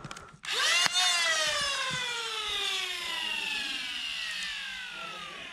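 Motorized foam dart blaster spinning up to a high whine, then winding down slowly, its pitch falling over several seconds. There are one or two sharp clicks near the start.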